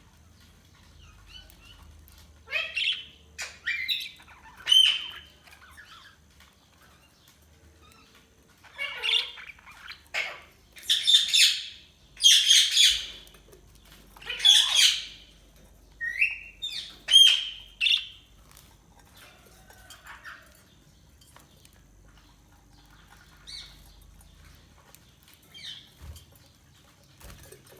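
Budgerigars chirping and squawking in short, harsh bursts, clustered in a loud spell through the middle and sparser near the start and end.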